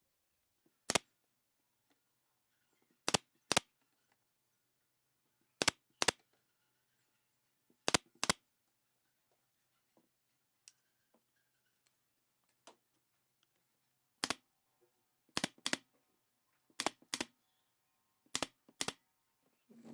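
Sharp knocks from woodworking on wooden slats, mostly in pairs about a third of a second apart, with a pause of several seconds in the middle. Under them runs a faint steady low hum.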